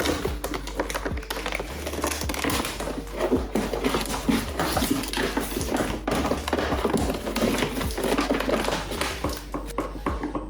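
Plastic parts and tools being handled during disassembly of a ride-on toy car: a busy run of clicks, knocks and rattles, with a steady low hum underneath.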